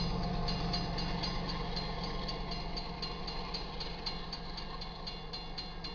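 Railroad grade-crossing warning bell ringing in rapid, even strikes, about four a second, while the crossing is still active after the train has cleared. Underneath, the low rumble of the departing Union Pacific freight train fades away.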